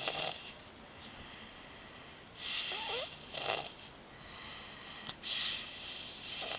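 Snoring: loud, rasping snores repeating every two to three seconds, with quieter breathing between them.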